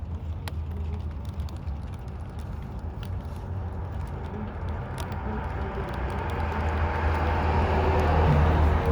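Steady low rumble with scattered sharp ticks, and a road vehicle approaching, its rushing noise swelling over the last few seconds.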